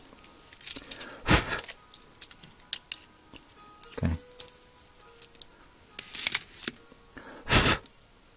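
Small clicks, taps and handling noises of a 1:64 die-cast truck being pulled apart by hand just after its rivets were drilled out, with the metal body and plastic chassis pieces knocking together. There are two louder handling noises, about a second in and near the end.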